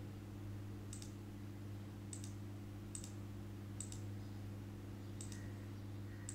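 Computer mouse clicking about six times at uneven intervals while wires are drawn in a schematic editor, over a steady low electrical hum.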